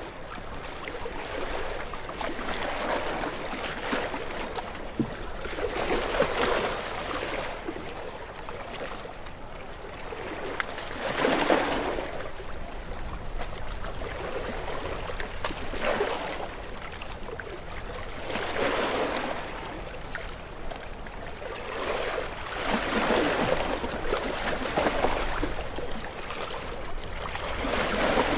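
Small waves washing in on the shore in repeated surges every few seconds, each a swell of rushing water noise that rises and falls away, over a continuous low wash.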